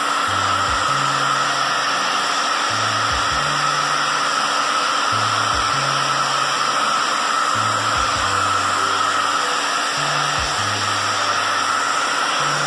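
Hand-held hair dryer blowing steadily, drying wet watercolour on a pastel drawing on paper.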